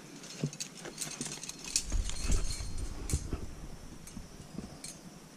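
Metal climbing gear jangling and clicking, with knocks of hands or shoes against the rock. A heavy muffled thump comes about two seconds in, with a cluster of loud clicks over the next second.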